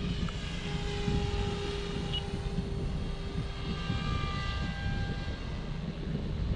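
Electric OMPHOBBY M4 Max RC helicopter flying at its second headspeed, 75% throttle: a steady whine of several tones from the motor and rotors over a low rumbling noise.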